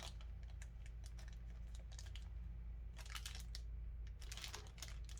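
Faint scattered clicks and light rustling from small hard objects and packaging being handled.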